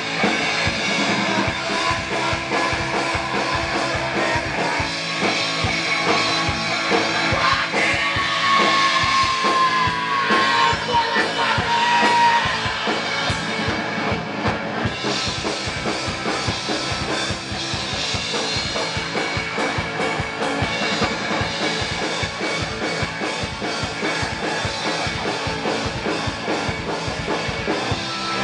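Live rock band playing: electric guitar over a drum kit keeping a steady beat.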